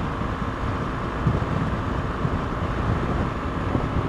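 Wind buffeting the microphone over the steady drone of a BMW R 1200 GS motorcycle and its tyres cruising at motorway speed.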